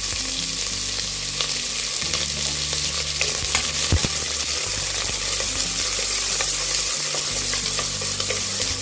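Chopped onions sizzling in hot oil in an open stainless-steel pressure cooker, stirred with a wooden spatula that now and then knocks and scrapes against the pot.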